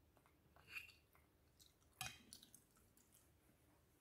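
A metal spoon clinking and scraping against a ceramic bowl, with the sharpest, ringing clink about two seconds in, between soft chewing sounds of sticky rice cake.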